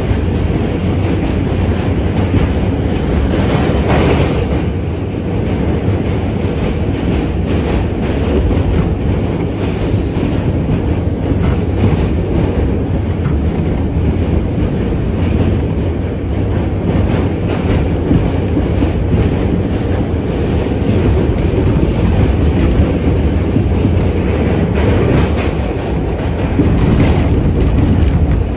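R68 New York City subway car running, heard from on board: a steady rumble of wheels on rail with scattered clicks from the wheels passing over rail joints. The noise swells briefly and brightens about four seconds in.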